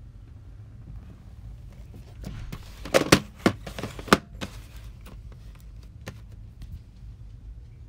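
A short flurry of knocks and clicks about two to four seconds in, the loudest two close together and another about a second later, over a low steady hum.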